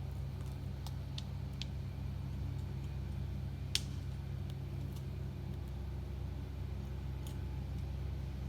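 Steady low rumble of highway traffic, with a few sharp clicks over it, the loudest a little before the middle.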